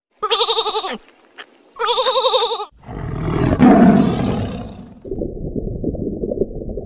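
Two quavering sheep bleats, each a little under a second long, followed by a loud tiger roar, then a muffled low rumbling noise.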